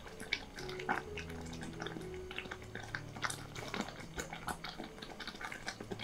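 Thick raspberry compote simmering in a saucepan: irregular wet pops and clicks, several a second, as it bubbles and is stirred. Soft background music is held underneath.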